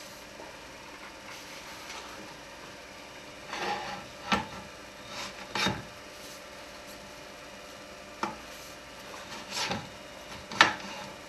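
Wood lathe running with a steady hum while something is pressed against the spinning wooden workpiece in several short rubbing, scraping passes, the loudest one near the end.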